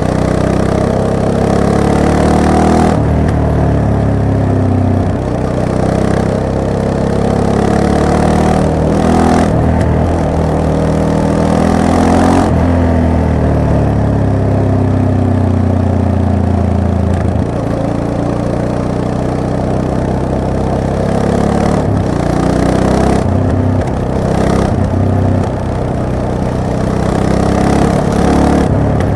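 Yamaha MT-03's parallel-twin engine under way, its pitch rising and falling repeatedly as it revs up and comes off the throttle, with several sudden short breaks.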